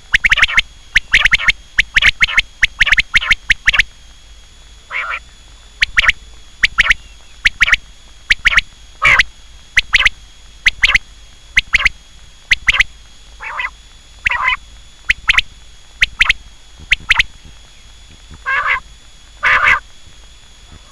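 Quail calling: short, sharp repeated calls, a quick run of them in the first few seconds, then single calls about once a second with brief pauses. A faint steady high whine runs underneath.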